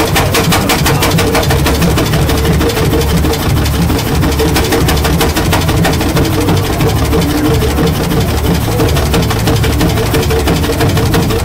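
Avery 20-35 gas tractor's engine running steadily at idle, a rapid, even beat of exhaust pulses.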